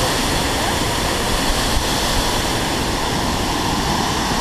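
Steady, loud roar of a large waterfall, the water crashing down without a break.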